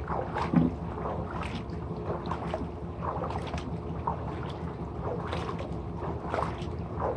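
Irregular crackling and trickling of liquid: strong hydrochloric acid fizzing as it dissolves calcium scale inside a pool salt chlorine-generator cell, with a soft knock early on.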